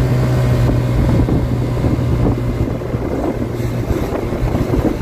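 A 50cc Chinese scooter engine on stock 5-gram variator rollers, held at full throttle in its power band as the scooter accelerates, giving a steady drone with wind rushing over the microphone. The engine note softens about halfway through.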